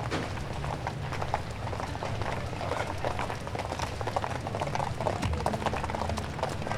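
Busy New York City sidewalk: many footsteps clicking and scuffing in a dense stream over crowd murmur and a low steady rumble.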